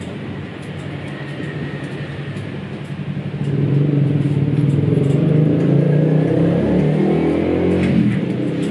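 Electric hair clipper buzzing as it cuts hair, growing louder about three and a half seconds in.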